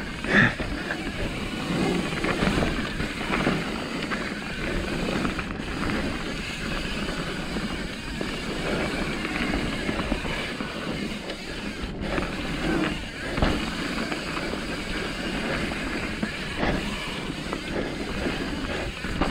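Mountain bike riding fast down a dirt trail: a steady rush of wind and tyre noise, with the bike rattling over the bumps and a few sharper knocks.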